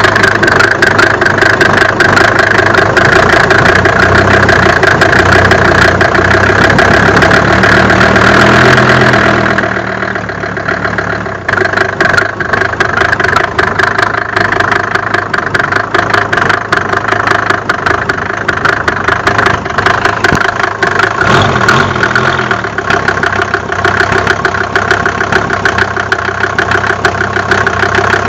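Mercedes-Benz OM605 five-cylinder diesel engine running, with a rapid knocking throughout that the owner is trying to trace.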